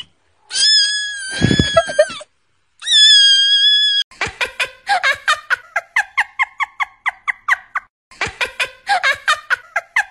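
Cat meme sound clips: a long, high kitten scream, then a shorter high cry. From about four seconds in comes a rapid string of short squeaky cries, several a second.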